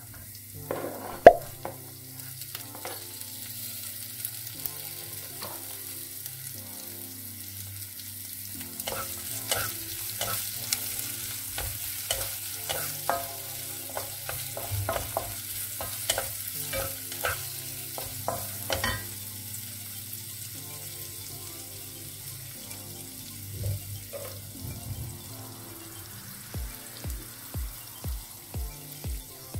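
Chopped tomatoes and green chillies tipped into a hot oiled non-stick pan, with one loud knock about a second in as they go in. After that the oil sizzles steadily while a wooden spatula stirs and scrapes the pan, with the strokes busiest through the middle.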